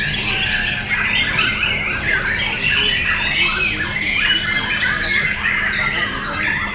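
Many caged songbirds singing at once in a dense, unbroken chorus of chirps, whistles and rasping squawky notes. An Oriental magpie-robin (kacer) is singing among them.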